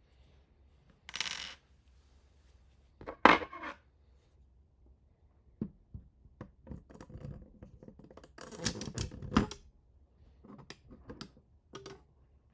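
Hand assembly of small hard parts: a brief rustle about a second in, a sharp knock a little after three seconds, then a run of clicks and clatter with the loudest handling near the middle of the second half.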